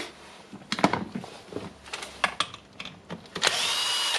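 Clicks and knocks of rotary hammer drill parts being handled during disassembly, then near the end a small electric power tool whirring briefly and steadily with a high whine.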